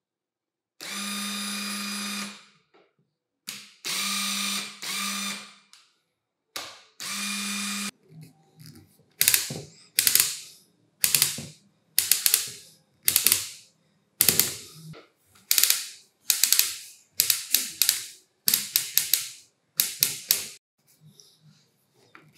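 National EZ6505 cordless impact driver running. First come a few steady no-load spins, each with an even motor whine and lasting about a second. Then come about a dozen short trigger bursts, roughly one a second, each a quick clatter of clicks from the impact mechanism.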